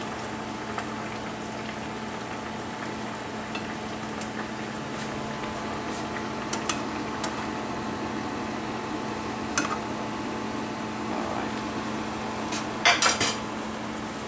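Kitchen dishes and utensils clinking: scattered light knocks of tongs and plates over a steady hiss, with a louder burst of clatter near the end.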